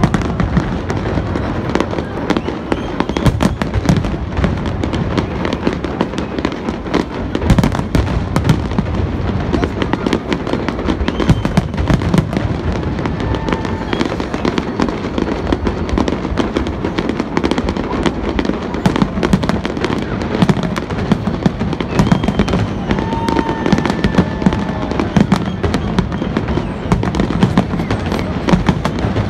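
Aerial fireworks display: shells bursting and crackling in a continuous barrage, many bangs in quick succession without a break.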